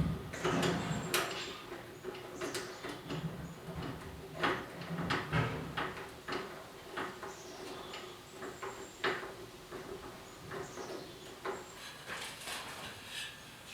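Hand work on a light fixture: irregular sharp clicks, taps and knocks with rustling between them, loudest in the first few seconds. A faint steady hum runs underneath through the middle.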